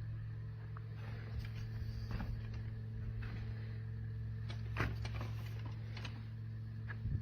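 A small motor hums steadily at a low pitch, with scattered light clicks and knocks over it; the strongest knock comes about five seconds in.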